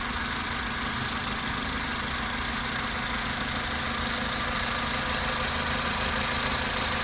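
Toyota Avensis 1.8-litre four-cylinder petrol engine idling steadily after a valve clearance adjustment. Thicker shims have been fitted to close up the oversized exhaust-valve clearances (0.60 and 0.40 mm), and the ticking under the valve cover is now much quieter, practically gone.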